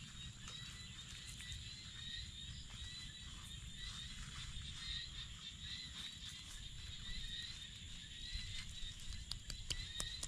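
A steady chorus of high, pulsing animal calls, with a low rumble underneath and scattered light clicks.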